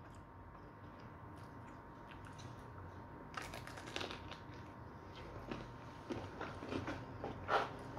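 Biting and chewing a crispy piece of KFC fried chicken, with a run of crisp crunches and crackles starting about three seconds in.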